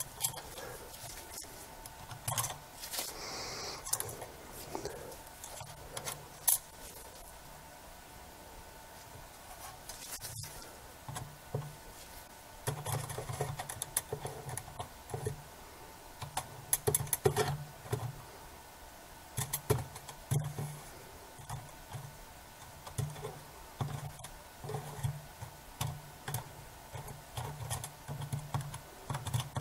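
Small clicks, taps and scrapes of lens parts and a small screwdriver being handled while a Sigma 10-20mm lens is reassembled. Soft low handling bumps come more often through the second half.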